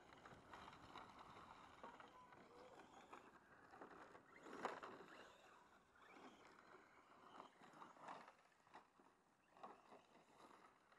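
Faint whine of a radio-controlled scale crawler's electric motor, with scrapes and crunches of its tyres over rough ground, the loudest scrape about four and a half seconds in.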